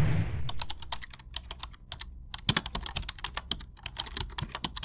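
Computer keyboard typing sound effect: a quick, irregular run of key clicks, after a short whoosh at the start.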